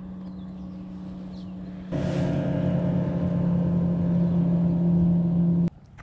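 Boat's outboard motor running at a steady pitch, turning louder and fuller about two seconds in, then cutting off suddenly near the end.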